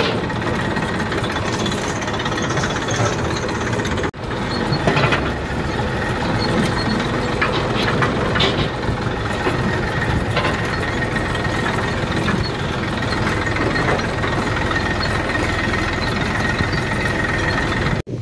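Massey Ferguson tractor's diesel engine running steadily under way, heard from the driver's seat, with a faint steady high tone alongside. The sound drops out for a moment about four seconds in.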